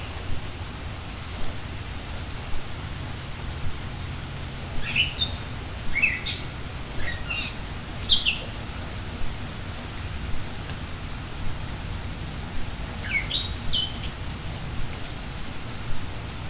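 Birds chirping in short sloping calls, in a cluster about five to eight seconds in and again near the end, over a steady rain-like hiss of background ambience.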